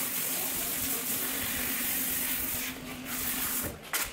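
Water spraying from a salon shampoo-bowl hand sprayer in a steady hiss as hair is rinsed. The hiss dips briefly about three seconds in, and near the end one sharp knock comes as the water stops.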